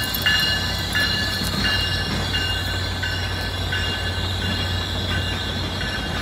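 Passenger train cars rolling past with their wheels squealing: a high two-note whine that cuts in and out about every half second, over a steady low hum.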